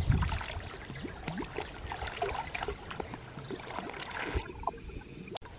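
Shallow stream water splashing as a person in it rubs and washes her legs: light, irregular splashes and trickling over the flow of the stream.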